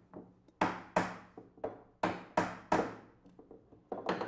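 Hammer driving small nails into wood: sharp wooden knocks about three a second, with a few lighter taps between them.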